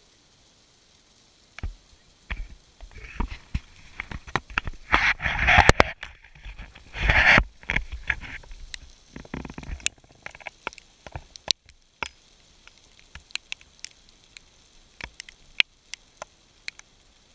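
Snowstorm hitting the microphone: irregular crackling clicks and patter, thickening into two loud noisy spells in the first half, then thinning to scattered clicks.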